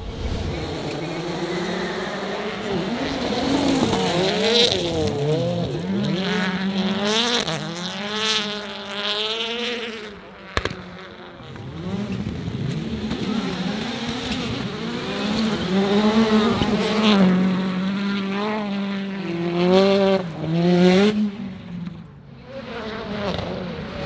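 Several rallycross cars racing, their engines revving high and falling away again and again through gear changes as they pass by. One sharp crack comes about halfway through.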